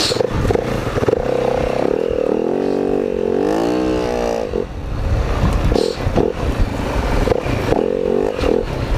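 Four-stroke dirt bike engine running at low trail speed, its pitch rising and falling as the throttle is worked, with a rev that climbs and drops back near the middle. Scattered clatter and knocks run through it.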